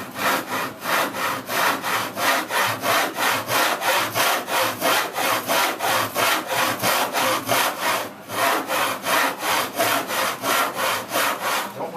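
A back saw crosscutting a wooden board by hand in quick, even strokes, with a short pause about eight seconds in. It is cutting the shoulder of a rabbet joint down to the gauge line, the blade riding in a knife-scored notch.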